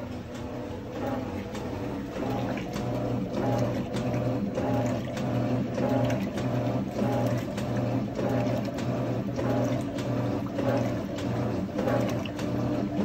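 Electrolux LTR12 top-loading washing machine agitating a load: the motor hums in short strokes that switch back and forth in a steady rhythm, with water sloshing and clothes churning in the tub.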